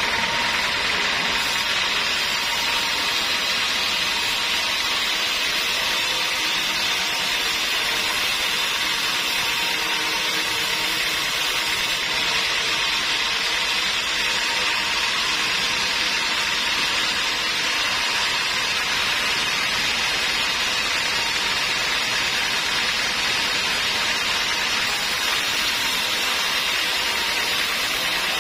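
Sawmill band saw running and cutting lengthwise through a teak log as the carriage feeds it along the blade. It makes a steady, unbroken whine and hiss at an even level.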